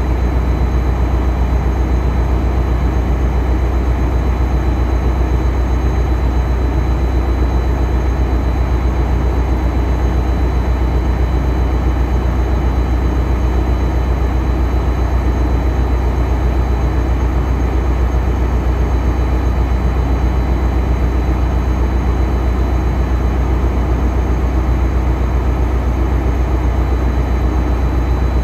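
Caltrain diesel-electric locomotive standing still with its engine running: a loud, steady low drone that does not change, with a faint steady high whine above it.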